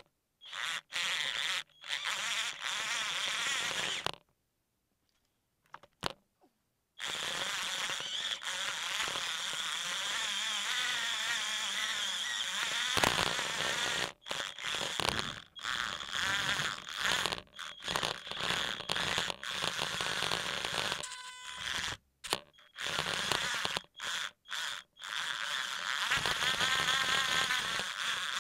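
Small electric motors in a Tamiya double gearbox whining as the tracked RC tank drives, the pitch wavering with speed. It runs in stretches, with a pause of about three seconds near the start and frequent brief stops and restarts in the second half.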